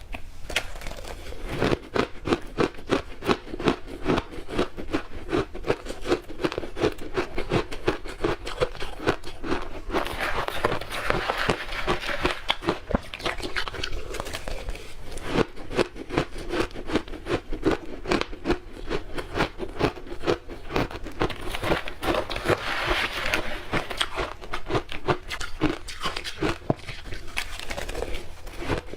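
Ice being bitten and chewed close to the microphone: a rapid run of sharp crunches and crackles, several a second, with two spells of denser crackling, one about a third of the way in and one past three quarters of the way.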